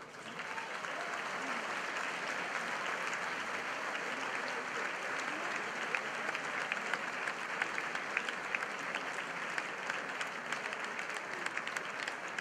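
Audience applauding: a dense wash of clapping that swells in the first moment and then holds steady, with separate sharp claps standing out more toward the end.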